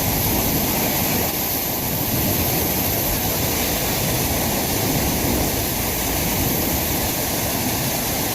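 Rushing water, a steady, unbroken hiss that neither rises nor falls.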